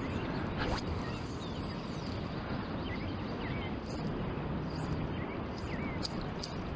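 Steady wash of surf and wind on the beach, with a few short, faint bird chirps about three and five seconds in.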